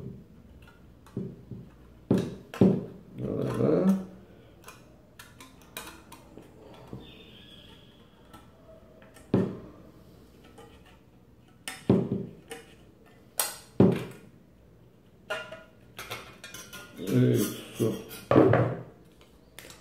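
Hand tin snips cutting thin sheet metal: single sharp snips and metallic clicks every second or few seconds, as the plate is trimmed out piece by piece.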